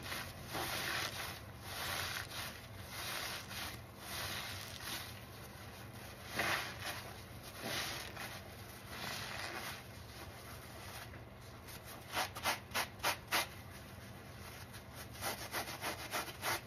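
Foam-covered sponges squeezed and worked by hand in thick soap suds, giving a continuous wet squishing and crackling of lather. About twelve seconds in comes a quick run of about five squelches, and another run follows near the end.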